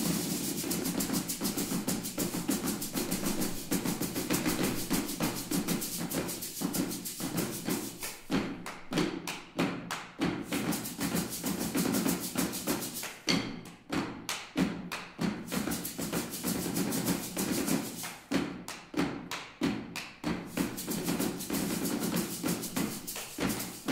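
Hollow carved pumpkins struck with sticks by a percussion ensemble, playing fast, dense rhythmic patterns with a hollow, woody thud. Three times the rapid patter gives way to separate, spaced strokes before picking up again.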